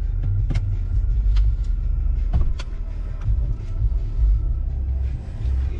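Car engine running, heard from inside the cabin as a steady low rumble, with a few scattered light clicks over it.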